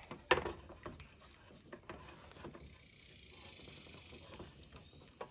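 Utensil knocking and scraping in a pan as scrambled eggs are worked: scattered light clicks and knocks, a sharper one about a third of a second in, over a faint hiss that swells in the middle.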